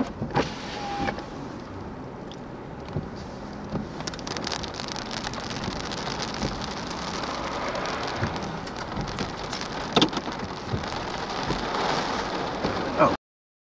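Rain hitting a vehicle: a steady hiss full of sharp drop hits that grows louder about four seconds in. The sound cuts off abruptly near the end.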